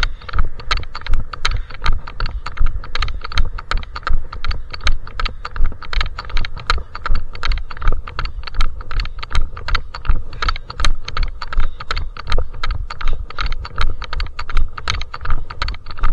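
Footsteps of a trail runner on a mountain path: a crunching, clicky step about twice a second in a steady rhythm, with a low rumble underneath.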